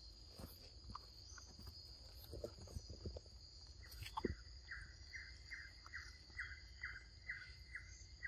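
Steady, high insect drone from the forest, with a bird repeating a short note about two to three times a second from about halfway through, and faint scattered clicks and rustles.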